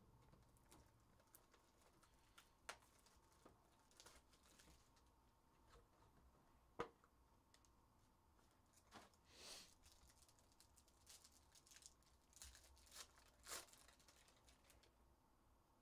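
Faint rustling and crinkling of a foil trading-card pack being pulled from its cardboard box and torn open, with scattered soft clicks and taps; one sharper tap comes about seven seconds in.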